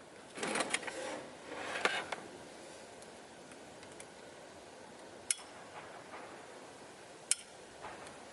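Handling of a small cutting tool: clattering and rubbing of hard parts in the first two seconds, then two sharp clicks about two seconds apart.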